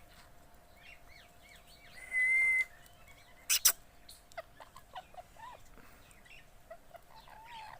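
Pet parrots chirping with many short, rising and falling calls. A loud steady whistled note sounds for about half a second about two seconds in, and a sharp click comes about three and a half seconds in.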